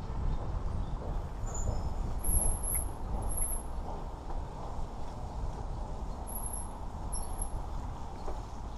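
Wind buffeting the camera microphone and the rattle of a mountain bike riding a dirt trail. Faint high-pitched chirping comes twice, about two and six seconds in.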